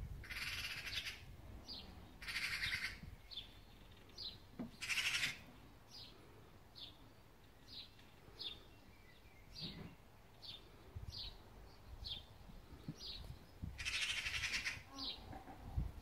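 Harsh, rattling chatter of a Eurasian magpie in four bursts, the alarm call magpies raise at a cat. A small bird's short, falling high call repeats about every 0.7 seconds throughout.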